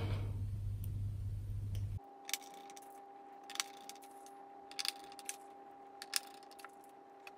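Small screws and a screwdriver making scattered light metallic clicks and taps as the screen is screwed to the back frame of the all-in-one computer. A low steady hum underneath cuts off about two seconds in.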